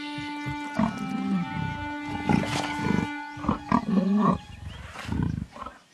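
Leopards growling in a run of short, harsh outbursts starting about a second in, over background music with held string notes. It is a male rebuffing a courting female.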